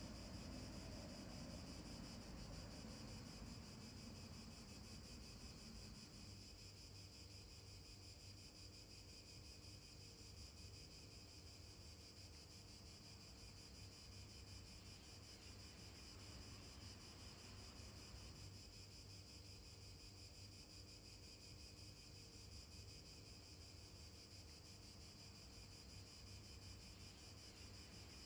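Near silence: faint outdoor background with a steady high-pitched hiss and a low rumble.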